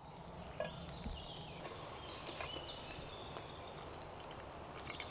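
Quiet outdoor woodland ambience with a few faint bird chirps and scattered light clicks and knocks, a sharper knock about half a second in.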